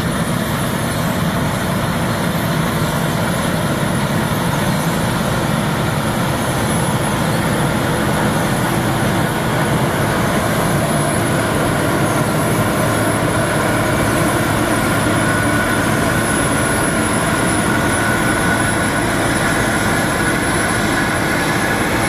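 Claas Lexion 460 combine harvester running steadily while harvesting wheat: a dense machine noise with a thin, steady high whine over it, growing slightly louder after several seconds.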